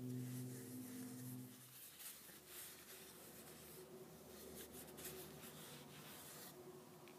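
Faint rubbing and scratching as a cloth rag and hands handle a wooden saw handle wet with boiled linseed oil. A low steady hum is heard at first and stops about two seconds in.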